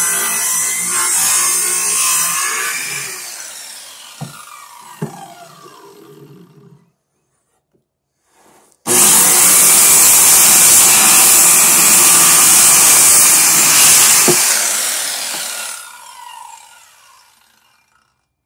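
Corded circular saw cutting through a thick wooden board in two runs. The first cut ends and the blade winds down with a falling whine a few seconds in; after a short silence the saw starts abruptly about nine seconds in, cuts for about five seconds, then spins down again.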